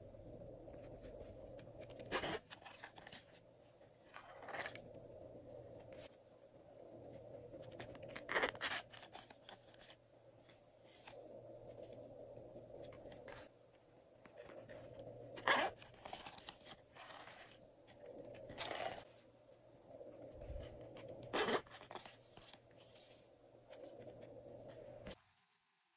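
Small plastic containers being handled and tipped out over trays of glossy slime, giving scattered short clicks, taps and scrapes every second or two over a faint steady hum.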